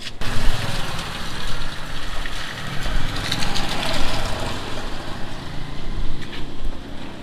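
A motor vehicle engine idling with a steady low throb under a noisy hiss.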